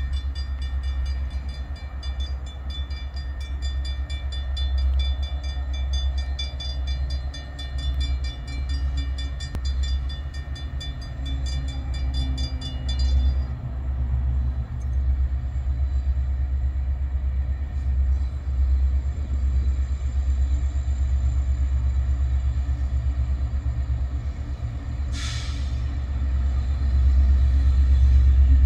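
Grade-crossing warning bells ringing rapidly over the low diesel rumble of an approaching train's SD70 locomotives. The bells stop about halfway through, and the rumble grows louder near the end.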